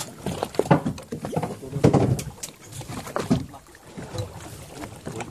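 Sea water slapping and sloshing against the hull of a small fishing boat, in irregular noisy bursts.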